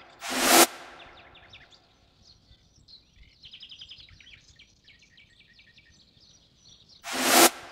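Two loud swelling film sound-effect stings, each building up and then cutting off sharply, one just after the start and one near the end. Between them, small birds chirp faintly.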